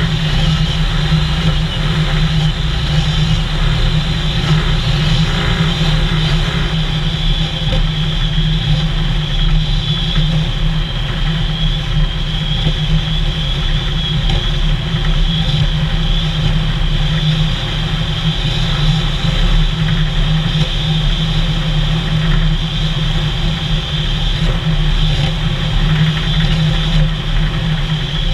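Vehicle engine running steadily at cruising speed, with road and wind noise, as heard from a camera mounted on the moving vehicle.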